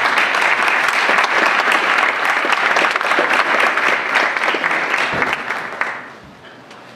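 Audience applauding: a full round of clapping from a roomful of people that dies away about six seconds in.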